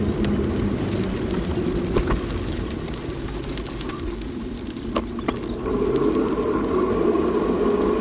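Steady running noise and hum of a small vehicle being ridden along a paved path, with short knocks about two and five seconds in. The hum grows louder about six seconds in.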